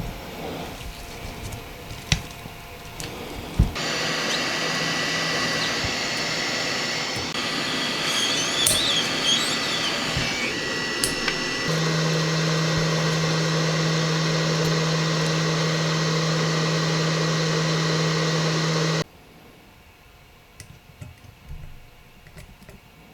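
A small electric tool runs steadily with a whirring hum. It is switched on about four seconds in, its tone shifts to a lower, steadier hum about halfway through, and it cuts off suddenly near the end, after a couple of sharp clicks at the start.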